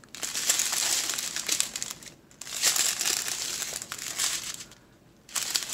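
Strips of sealed plastic packets of diamond-painting drills crinkling as they are handled, in two spells of about two seconds each split by a brief break, then a short pause and more crinkling at the very end.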